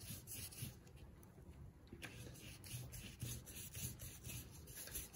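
Wide paintbrush stroking a thin wash of watered-down paint across a sheet of printed paper: faint, repeated soft brushing rubs of bristles on paper.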